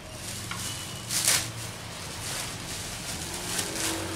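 Clear plastic wrapping crinkling and rustling in several bursts as it is cut with a utility knife and pulled off a machine, the loudest burst about a second in.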